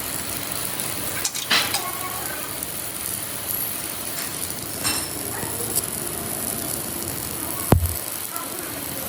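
Steady workshop noise with a few metal clinks, and a sharp metallic knock with a low thud near the end.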